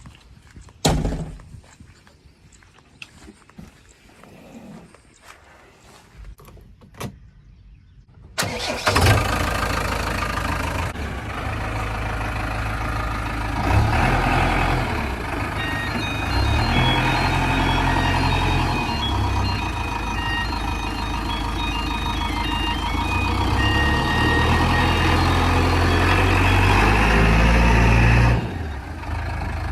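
Scattered faint clicks and knocks, then about eight seconds in a JCB 3DX backhoe loader's diesel engine starts suddenly and keeps running steadily. From about halfway a melody of high beeping tones plays over the engine.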